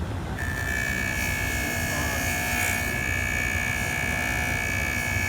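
JOOLTOOL bench-top polishing tool running, its spinning head giving a steady high whine with a hiss, which starts about half a second in as a watch part is worked against it.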